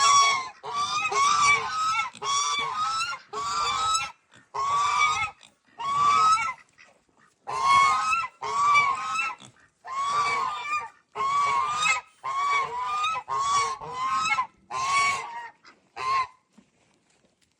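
Farm fowl calling over and over, about one short call a second, each call rising then falling in pitch; the calls stop near the end.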